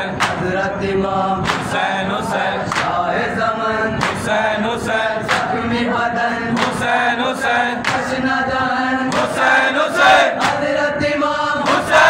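A crowd of men chanting a noha in unison, cut by a steady rhythm of sharp slaps from chest-beating (matam).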